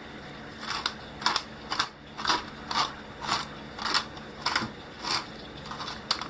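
Hand-turned pepper grinder being twisted, giving about ten short grinding rasps at roughly two a second.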